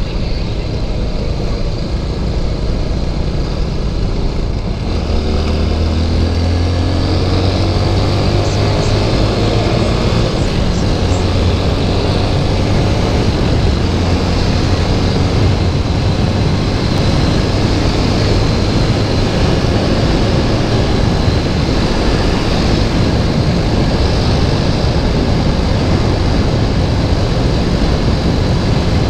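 TVS Apache RTR 200 4V single-cylinder motorcycle engine under way, its note rising as the bike accelerates from about five seconds in, then holding steady at highway cruising speed. Heavy wind rush on the camera microphone runs under the engine throughout.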